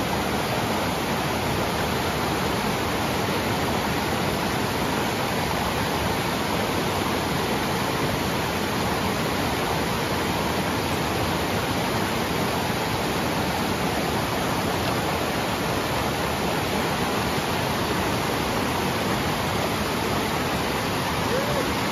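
Fast, silty snowmelt river rushing over boulders: a steady, loud rush of water that does not let up.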